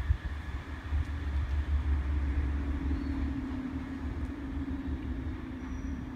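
Class 150 Sprinter diesel multiple unit approaching, its diesel engines giving a steady drone over a low rumble.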